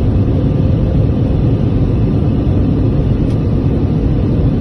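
Steady, loud rumble of an airliner's jet engines and rushing air heard from inside the passenger cabin during the climb after takeoff.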